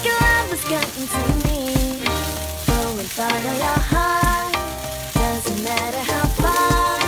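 Instrumental pop music with a steady beat, over the sizzle of rice and diced hotdog frying in a pan and the scraping of a spatula stirring it.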